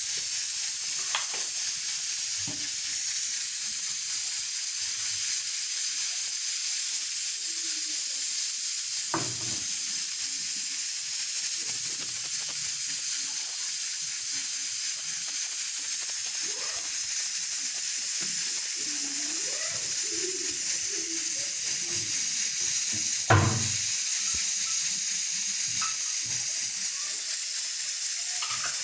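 Steady sizzling hiss of cooking oil heating in an iron wok on a gas stove, with one sharp knock partway through.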